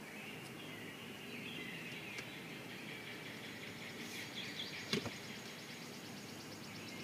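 Outdoor ambience: a steady background hiss with bird calls and a rapid, even insect trill, and a single sharp click about five seconds in.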